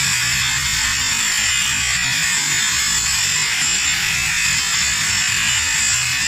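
LPG gas-welding torch flame, a steady hiss with a low rumble underneath, as it heats an aluminium casting during welding.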